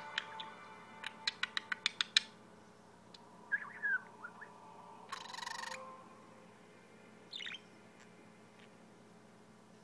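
Budgerigar giving a few short chirps, about three and a half seconds in and again near the end, after a quick run of about eight clicks. A short burst of noise comes about five seconds in.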